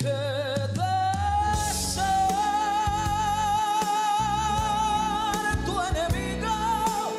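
A male singer with band accompaniment, holding one long note with vibrato for about four seconds before the melody moves on near the end.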